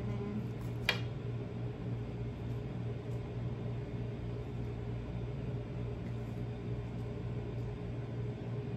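A steady low hum over an even background hiss, with one sharp click about a second in.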